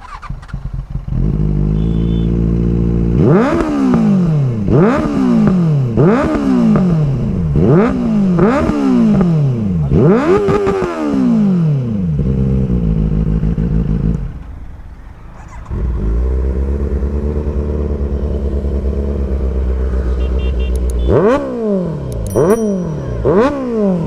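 Benelli 600i's inline-four engine starting and idling, then revved about seven times in quick throttle blips, each note rising sharply and falling back to idle. The engine sound drops away briefly, idle resumes, and about four more quick revs follow near the end.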